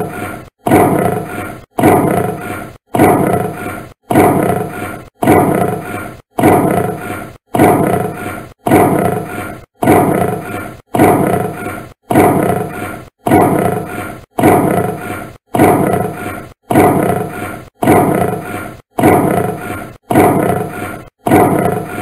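A lion's short roar, looped and repeated about once a second, each call starting loud and fading quickly.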